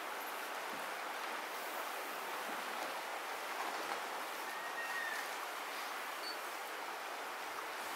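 Shallow river water running over stones: a steady rushing with no breaks.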